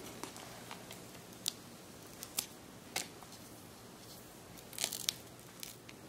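Faint handling sounds of a thin plastic screen protector being peeled off an iPhone 6 Plus's glass screen: a few sharp little ticks and crackles, with a short cluster of them about five seconds in.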